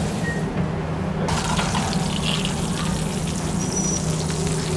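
Steady commercial-kitchen background noise: a low hum under an even hiss, its high end brightening abruptly about a second in.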